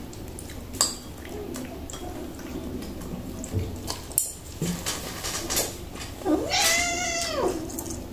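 A kitten gives one long meow about six seconds in, rising and then falling in pitch. A couple of sharp clicks come before it, about a second and four seconds in.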